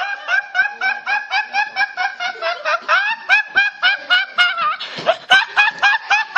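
A young man laughing hard: a rapid, high-pitched laugh in short pulses of about four to five a second.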